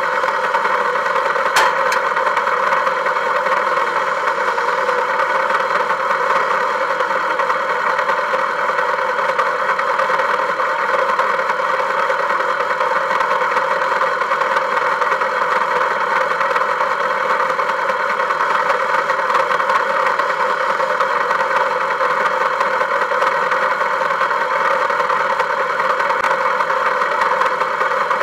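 Volkswagen vehicle's engine running at a steady, unchanging pitch, with one short click about a second and a half in.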